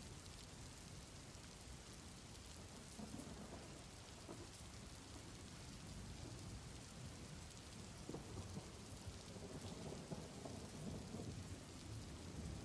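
Soft steady rain, with low thunder rumbling more strongly in the second half.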